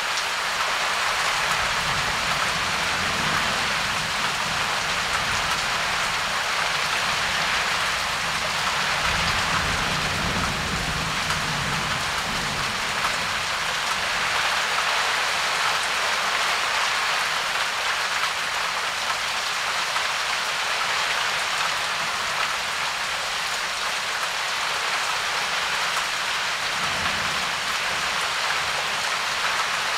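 Steady, heavy rain falling in a thunderstorm, with low rumbles of distant thunder a couple of seconds in, again about ten seconds in, and briefly near the end.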